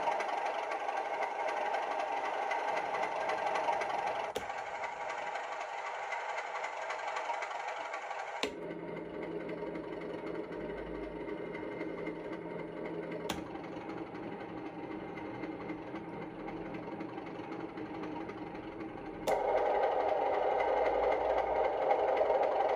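Recorded Class 37 diesel locomotive idle sound played by a Loksound 5 DCC sound decoder through a series of small model-railway speakers. The output is switched to a different speaker with a click four times, and the tone of the idle changes with each speaker; the last one is noticeably louder.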